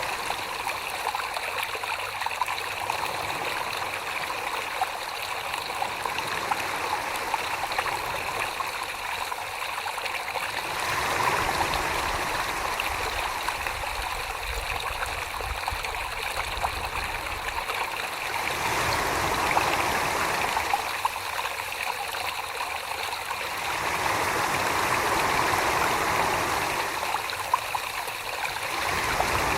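Wet clay being thrown on a spinning potter's wheel: a steady, watery swishing of slippery hands on the clay, swelling louder several times as the pressure changes.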